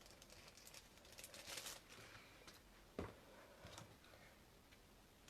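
Faint crinkling and rustling of packaging being opened and handled, with a single sharp click about three seconds in.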